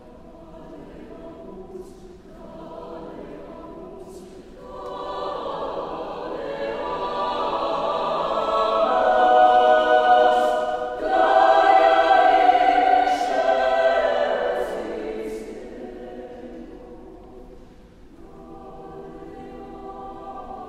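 Mixed-voice chamber choir singing in sustained harmony. The choir starts soft, swells to a full, loud climax around the middle, then fades away, and a quiet new phrase begins near the end. Crisp sibilant consonants cut through at the loudest point.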